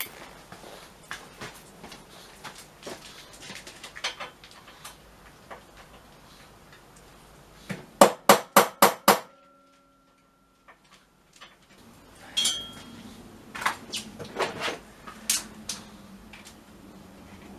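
Hammer striking an oversized socket to drive it onto a stuck bolt: five quick, loud metal-on-metal blows in about a second, about eight seconds in. Lighter clinks and knocks of tools come before and after.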